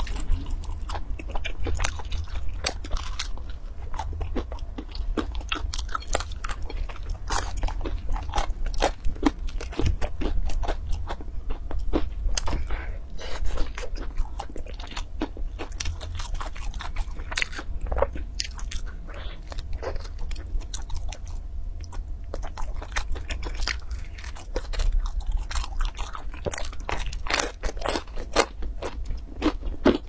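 Close-miked chewing and biting of pizza with a crisp crust: an uneven, continuous run of crunchy clicks and wet mouth sounds.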